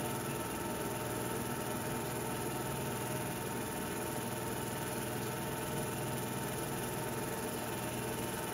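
Steady mechanical hum and hiss with no game sound, the running noise behind a silent film reel.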